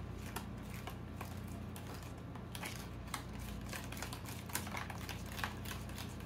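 A spoon stirring a mayonnaise dressing in a bowl, knocking against the sides in a run of irregular light clicks.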